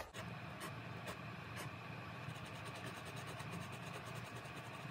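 Steel nib of a TWSBI ECO fountain pen scratching on sketchbook paper: a few light taps, then from about halfway quick, even back-and-forth strokes as it fills in a small square with ink. A steady low hum runs underneath.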